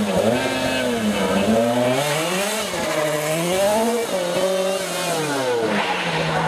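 Rally car engine driven hard as the car passes and pulls away: the revs climb and drop repeatedly, about once a second, with gear changes and lifts off the throttle.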